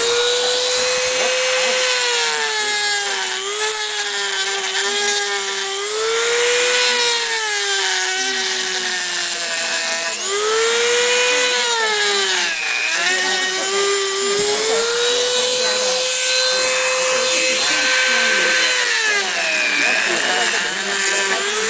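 Dremel rotary tool running at high speed and grinding the rock base off a coral frag. Its whine sags in pitch each time the bit bites into the rock and picks up again as it frees, with one sharp dip about halfway through.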